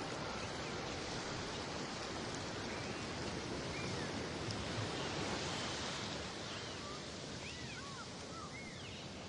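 Steady underwater water noise with spinner dolphins whistling: short rising-and-falling pitch arcs, several in quick succession near the end.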